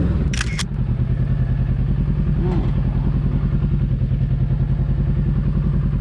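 Kawasaki motorcycle engine idling steadily with an even, rapid pulse. Two sharp clicks sound about half a second in.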